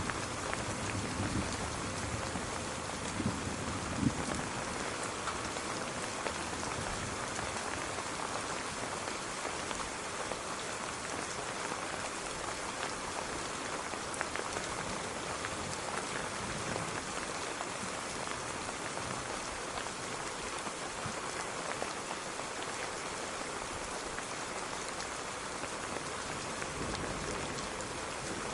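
Steady rain falling and pattering on surfaces, an even hiss of drops throughout. A low rumble dies away in the first few seconds.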